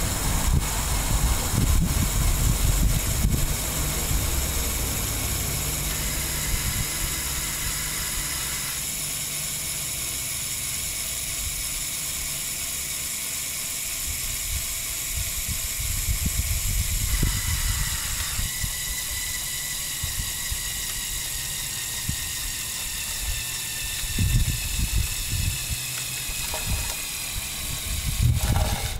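Small electric motors and plastic gearing of a motorised Lego Technic crane truck whirring as the crane boom and winch work, the pitch of the whine stepping as motors switch on and off several times. Gusts of wind rumble on the microphone now and then.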